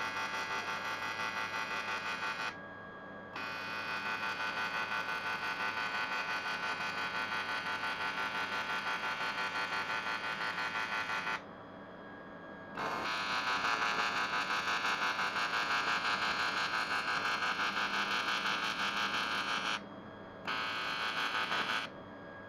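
AC TIG (argon-arc) welding arc buzzing steadily as aluminium filler is built up into corrosion pits on the deck face of an aluminium cylinder head. The buzz cuts out abruptly three times, about two and a half, eleven and a half and twenty seconds in, and again near the end, and is louder after about thirteen seconds.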